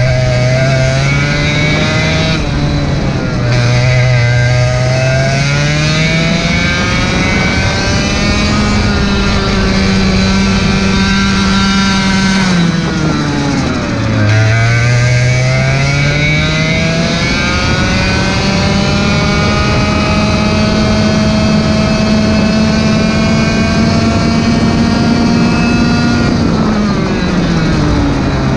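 Onboard sound of a racing kart's single-cylinder two-stroke engine on a lap. The revs climb out of a corner and hold high along the straights, reaching about 12,800 rpm. Twice, about halfway and near the end, the pitch drops sharply as the driver lifts off for a corner, then climbs again.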